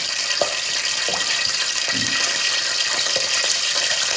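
Hot oil sizzling steadily in a frying pan as food deep-fries, with a few faint knocks.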